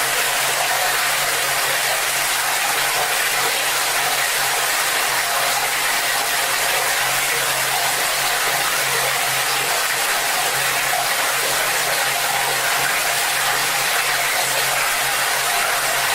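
Water from a tap pouring hard into a bucket: a steady, even splashing rush.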